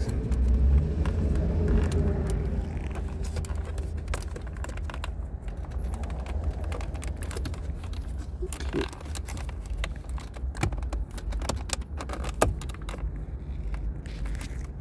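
Scattered small clicks and taps of hands and tools working at the plastic center-console trim of a car interior, over a steady low rumble.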